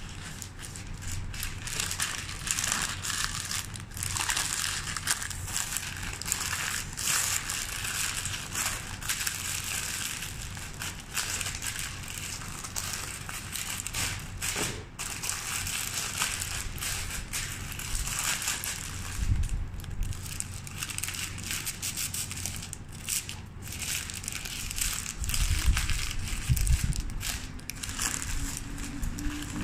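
Sheets of white wrapping paper crinkling and rustling as they are handled, folded and gathered around a flower bouquet, with a few dull bumps in the second half.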